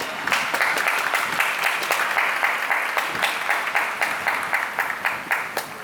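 Stadium crowd clapping in a steady rhythm of about four claps a second. It starts suddenly and stops near the end.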